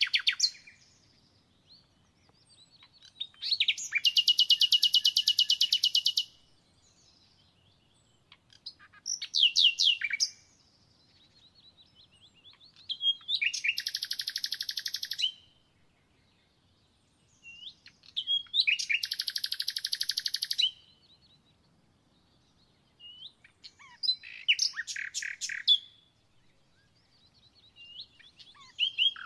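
A songbird singing loud, high, rapidly trilled song phrases, each two to three seconds long, repeated about every five seconds with quiet gaps between.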